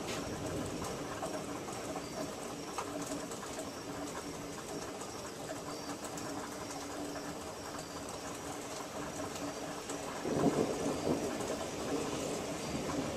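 Steady rain hiss during a thunderstorm. About ten seconds in, a low rumble of distant thunder swells up.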